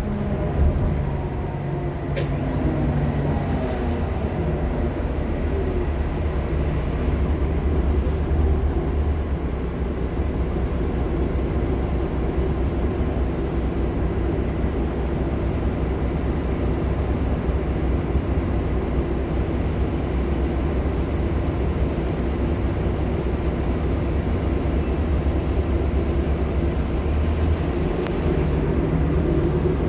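Nova LFSA HEV articulated hybrid bus under way, its Cummins ISL9 diesel and Allison H50 EP hybrid drive giving a steady low rumble, with the drive's pitch climbing near the start and again near the end. A faint high-pitched squeal sounds for a few seconds about a quarter of the way in.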